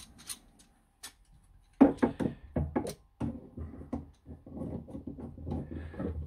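Clicks and wooden knocks as a length of kitchen cornice is positioned and clamped onto the top of a wall unit, with the loudest knock about two seconds in.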